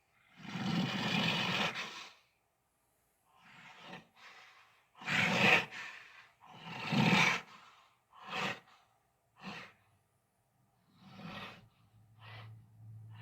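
A string of breathy dinosaur roar and growl sound effects, about eight in all with short silences between them. The first is the longest, and they grow shorter and sparser toward the end.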